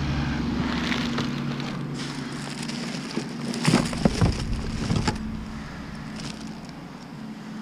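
A garbage truck's engine runs as a low steady hum that fades over the first couple of seconds. Then trash is rummaged by hand in a curbside cart: a handful of knocks, clatters and rustles.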